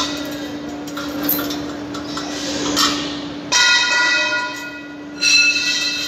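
Steel concrete-pump pipework struck twice, about two seconds apart, each blow ringing like a bell for a moment, over a steady low hum.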